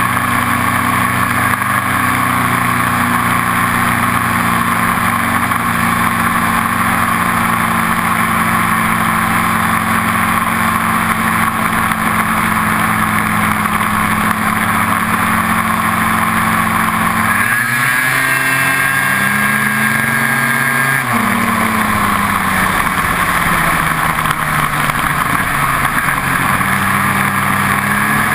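Snowmobile engine running at a steady speed while riding, with the revs dropping and climbing again about two-thirds of the way through.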